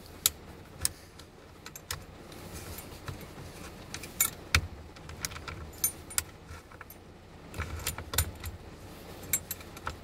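Keys jangling, with irregular light clicks of metal and plastic, as the new ignition lock cylinder is wiggled in a 1990 Chevy truck's steering column to line its threaded retaining pin up with the slot in the tumbler.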